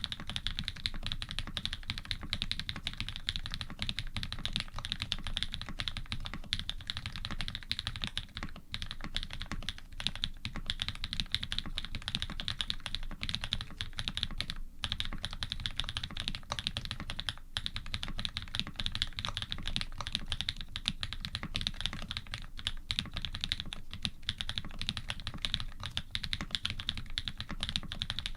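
Fast continuous typing on a custom Iron180 mechanical keyboard: dense keystroke clicks from lubed linear switches (Cherry housings with Cream stems) on a carbon plate, with GMK keycaps and Cherry stabilizers, recorded dry. The typing pauses briefly a few times.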